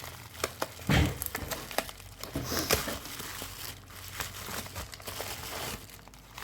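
Paper packaging and wrappers being handled and crinkled: irregular rustling and crackling, with a soft knock on the table about a second in.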